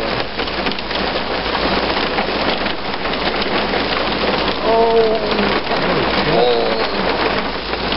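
Heavy rain pouring onto wet pavement: a dense, steady hiss of splashing with many sharp individual drop hits.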